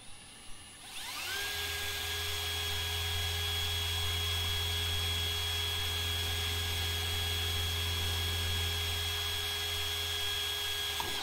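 Cordless drill spinning up about a second in and running at a steady speed as its bit bores through a plastic jar lid, cutting off near the end.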